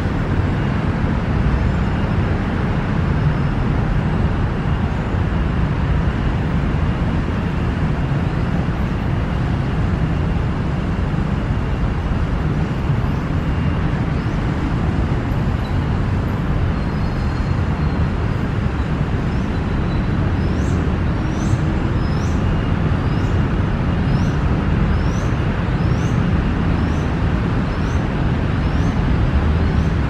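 Steady low rumble of city road traffic. About two-thirds of the way through, a bird starts a quick series of short, high, thin calls, a little more than one a second.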